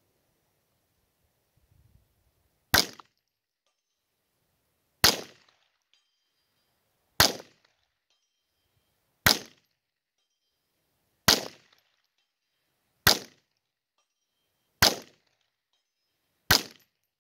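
Eight .22 LR shots from a scoped Marlin rifle, fired about two seconds apart. Each is a sharp crack with a short fading tail.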